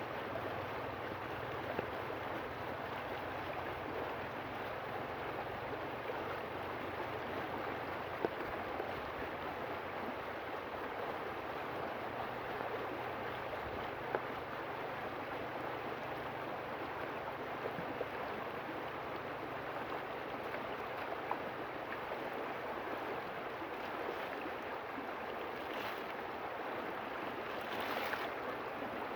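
River water flowing steadily, with a few sharp clicks scattered through it and two short swishes near the end.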